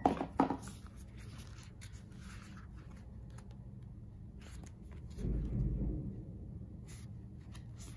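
Paperback guidebook being pulled from its cardboard box and opened, with soft paper rustles and a few light clicks of pages and card stock. A dull bump of the book being handled comes about five seconds in.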